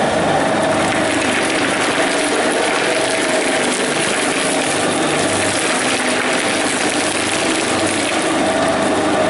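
Shaft-type shredder running under load, its hooked cutter discs tearing through black plastic strapping and scrap. A steady hum sits under dense grinding and tearing noise.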